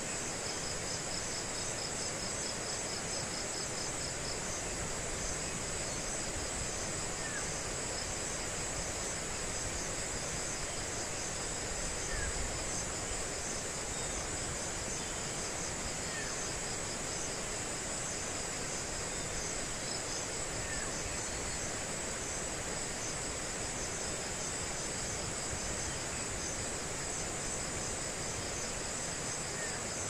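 Insects trilling in a steady high-pitched chorus with a fine pulsing texture, over a faint even hiss. A few faint short chirps come through every few seconds.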